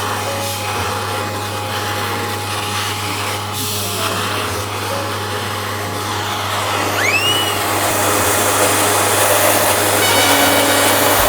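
Pet grooming vacuum of a clipper kit running steadily, a low motor hum under rushing suction noise that grows louder in the second half. A short rising-then-falling whistle-like tone about seven seconds in.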